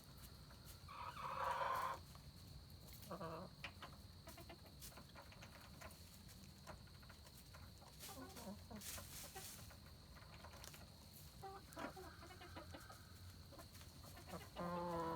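Silkie chickens clucking at intervals, with a louder call about a second in and another near the end.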